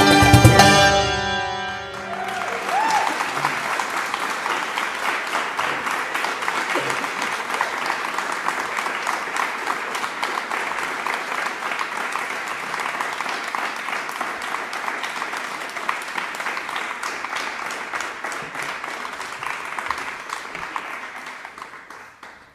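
A piece for santur and string quartet ends on a final chord that stops after about a second and a half, and audience applause follows, running steadily and fading out near the end.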